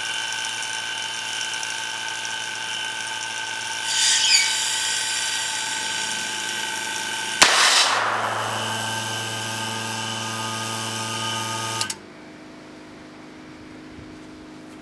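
Electric pump running steadily with a whine of several fixed pitches. About seven seconds in comes a sharp crack and a short rush of air as the vacuum cannon fires. The pump runs on with a changed tone and stops abruptly about twelve seconds in.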